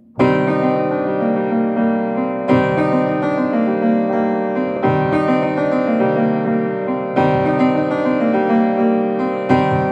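Upright acoustic piano being played, starting just after the opening: a strong chord struck about every two and a half seconds, with quicker repeated notes between the chords.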